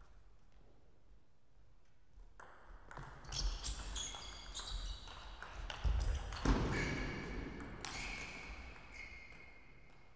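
A table tennis rally: the celluloid ball clicks in quick succession off the paddles and table, with shoes squeaking on the sports floor as the players move. It starts about two and a half seconds in and dies away shortly before the end.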